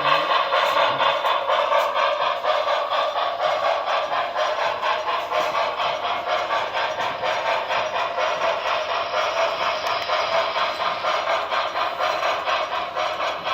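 Onboard sound of an HO-scale Broadway Limited Paragon4 New York Central Hudson model steam locomotive as it runs: a steady rhythm of steam chuffs, about three a second.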